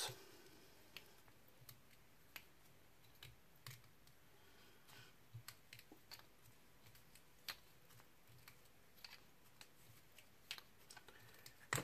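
Near silence with faint, scattered light clicks and ticks from a fly-tying bobbin and thread being wrapped around the hook in the vise, with a slightly louder click near the end.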